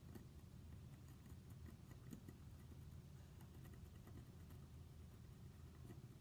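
Faint scratchy ticks of a wax crayon being rubbed lightly over hardened salt dough, over a low steady hum.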